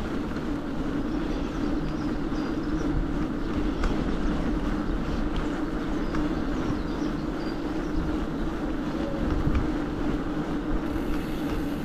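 Steady droning hum and low rumble of a bike being ridden along a rough path, with faint bird chirps above.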